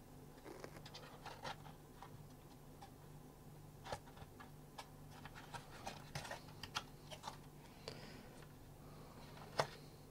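Faint scattered clicks and scrapes of a portable oscilloscope's circuit board and plastic frame being handled and worked loose, with a sharper click near the end.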